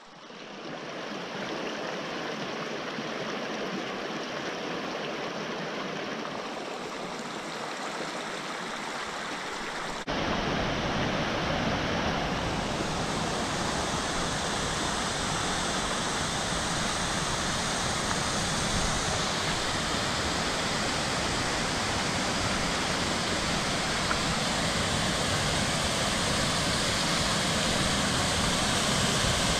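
Water of a rocky mountain creek and waterfall rushing, a steady even noise. About ten seconds in it jumps to a louder, fuller rush.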